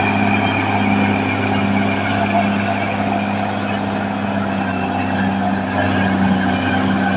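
Caterpillar D6R XL bulldozer's diesel engine running at a steady pitch, with a wide mechanical clatter and hiss over it.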